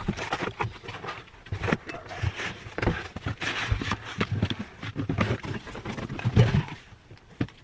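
Cardboard shipping box being unpacked: flaps folded back, foam packing blocks pulled out and a boxed device lifted free. Cardboard and foam rustle and scrape, with irregular knocks and a few dull thumps, heaviest about six and a half seconds in.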